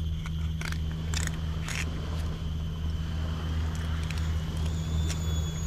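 A knife blade scrapes and clicks a few times in the first two seconds as it slides along a needlefish's backbone to fillet it, over a steady deep hum like a distant engine.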